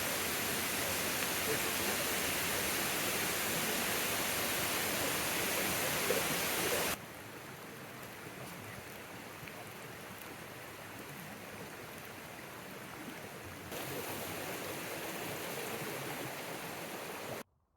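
Waterfall rushing: a steady noise of falling water. It drops abruptly in level about seven seconds in, rises again near fourteen seconds, and cuts off suddenly just before the end.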